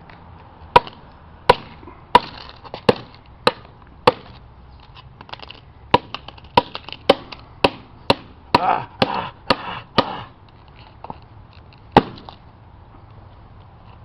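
An iPhone 3GS being smashed with a Barbie toy hammer: about fifteen sharp blows, roughly two a second. The blows pause briefly, come faster with a crunching rattle of broken parts in the middle, and a last single blow falls near the end.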